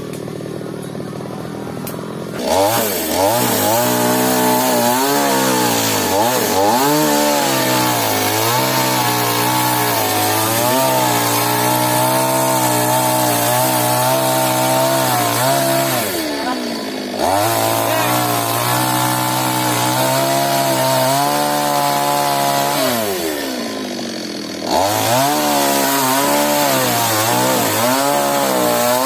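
Stihl chainsaw cutting through a mahogany trunk. It runs lower for the first couple of seconds, then revs to full throttle, its pitch wavering as the chain bites into the wood. Twice it eases off briefly and revs back up, a little past halfway and again near the end.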